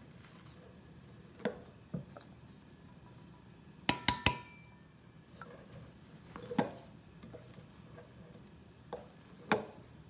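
Spatula knocking and scraping against a stainless steel mixing bowl while meringue batter is folded, with scattered sharp clinks. The loudest is a quick run of three knocks about four seconds in, after which the metal bowl rings briefly.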